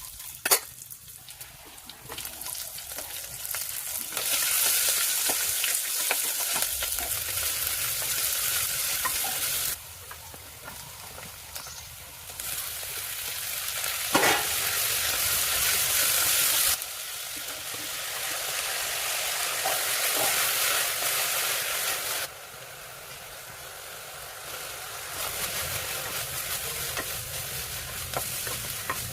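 Food sizzling as it fries in oil in a pan and is stirred, while menthya bath is being cooked. The sizzle drops and swells abruptly several times, with a sharp click near the start and another in the middle.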